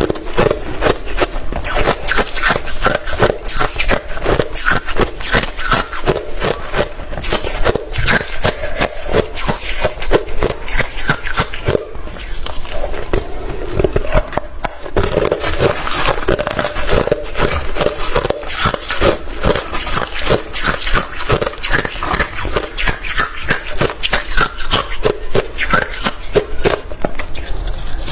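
Hard refrozen crushed ice being chewed close to the microphone: a continuous run of crisp, rapid crunches with only brief pauses.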